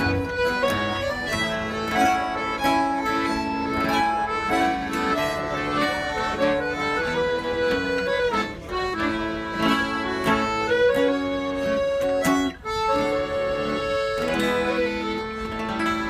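Traditional fiddle tune played with guitar accompaniment, in a quick run of short notes and a brief break about three-quarters of the way through.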